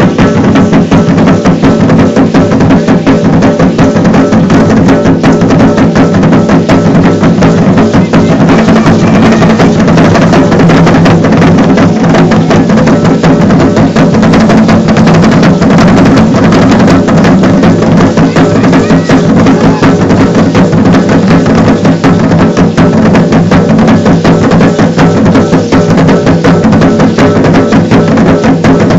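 Loud, steady Aztec dance drumming, with the dense clatter of the dancers' seed-pod ankle rattles (ayoyotes) over it.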